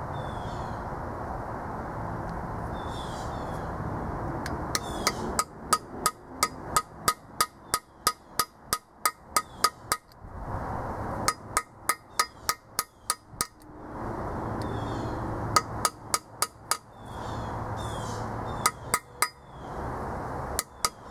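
Hammer striking a steel tool against a small block Chevy 350 engine block, in several runs of quick ringing blows about two to three a second. Faint bird chirps sound in the background.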